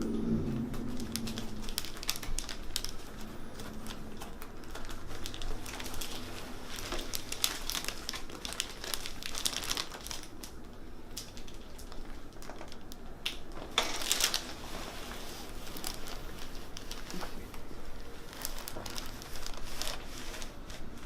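Soft rustling and crinkling of clothing and the table covering as the chiropractor's hands work on the patient, with scattered small clicks and a louder rustle about two-thirds of the way through.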